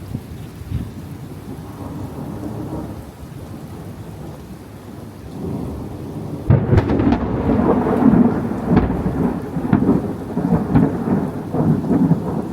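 Thunderstorm rain with a low rumble of thunder, then about halfway through a sudden loud, close thunderclap from a nearby lightning strike that keeps rolling and rumbling.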